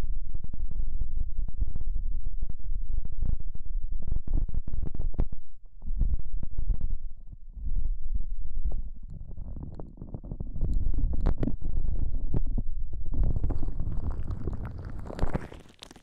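Rubber-gloved hands rubbing and cupping over the ears of a binaural microphone, giving a loud, muffled low rumbling that dips for moments now and then. Towards the end it turns brighter and crinkly as the gloves move across the mic's ears, then fades.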